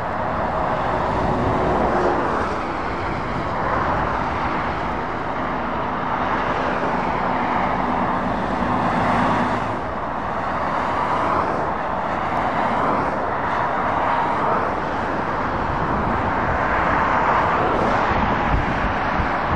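Steady motorway traffic, with tyre noise and lorry engines swelling and fading as vehicles pass. A low engine hum carries through the first half.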